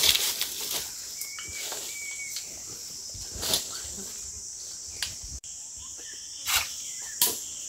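Insects chirring in a steady, high-pitched drone, with a few scattered knocks and rustles over it.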